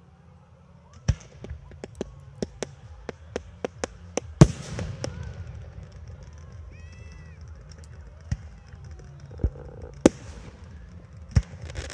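Aerial fireworks bursting: a sharp bang, then a quick string of cracking reports. The loudest bang comes about four seconds in, followed by a few more scattered bangs.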